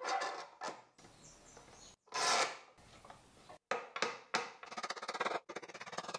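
Steel bar clamps being fitted and tightened over a freshly glued pine joint: metal jaws sliding and rubbing along the bars against the wood, with a louder scrape about two seconds in and a run of quick light clicks near the end.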